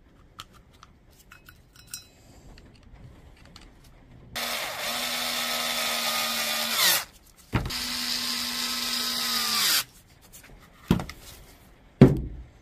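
Electric drill-driver running screws into the casing of a Bosch 18V battery pack: two runs, one of about two and a half seconds and one of about two seconds, each a steady motor whine that drops in pitch as it slows at the end. Two sharp knocks follow near the end.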